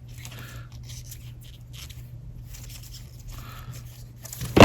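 Trading cards being handled, a faint scattered rustling over a low steady hum, with one sharp tap near the end.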